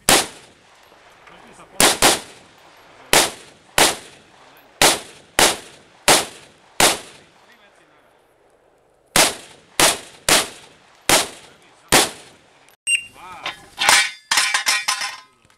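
Rifle fire: about nine shots, two of them close together, then after a pause of about two seconds another string of five, each a sharp crack with a short echo. Near the end comes a quick run of metallic clicks and rattles with a faint ringing.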